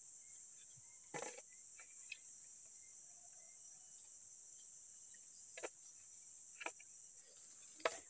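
Steady high-pitched insect chorus of the forest undergrowth, with a few brief faint knocks and clicks as the split wooden sword sheath is handled.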